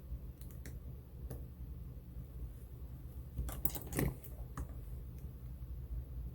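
Small clicks and handling noises of a phone and small tools on a workbench, with a louder cluster of clicks and rustling about three and a half seconds in, over a steady low hum.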